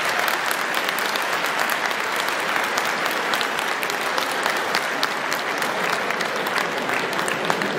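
Large arena crowd applauding, a steady dense mass of hand claps, at the break after a boxing round.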